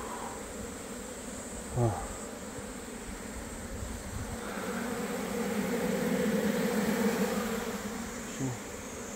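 A swarm of Asian honeybees (Korean native bees) buzzing around an opened hive. The hum swells louder in the middle for a few seconds, and a bee passes close by with a brief louder buzz that falls in pitch about two seconds in.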